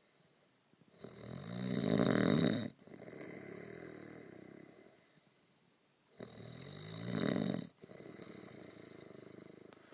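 Snoring in a slow breathing rhythm. There are two loud, rasping snores, about a second in and about six seconds in, each swelling to a peak and cutting off sharply. Each is followed by a longer, quieter snoring breath.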